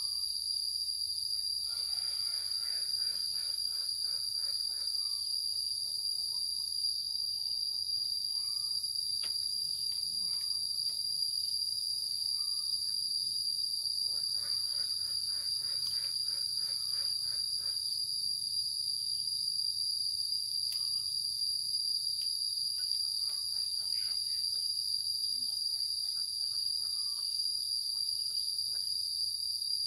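Insects chirring in a steady, unbroken high-pitched drone, with faint scattered lower sounds beneath.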